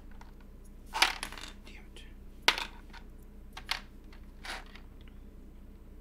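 PBT plastic keycaps clacking as they are handled: a few sharp, separate clicks spread over several seconds, the loudest about a second in and another about two and a half seconds in.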